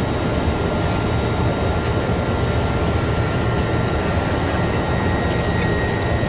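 Cessna 208B Caravan's single PT6A turboprop and propeller, heard from inside the cockpit, running steadily while taxiing in. It is a constant roar with a thin, steady high whine on top.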